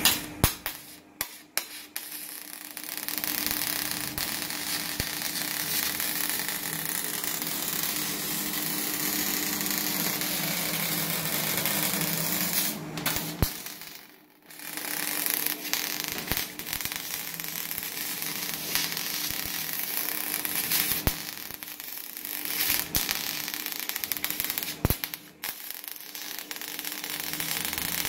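MIG welding arc on aluminium from a Retop MIG 250i welder: a steady hissing crackle. A few short starts and pops come in the first couple of seconds, and the arc stops briefly about halfway through, then runs again.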